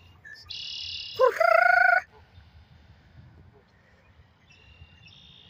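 Red-winged blackbird singing its buzzy trill twice, near the start and again near the end. Over the tail of the first song comes one loud honk, rising in pitch, from a Canada goose.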